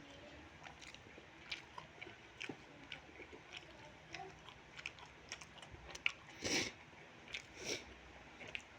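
A person chewing food close to the microphone: a run of small wet mouth clicks, with a louder smacking burst about six and a half seconds in and a smaller one a second later.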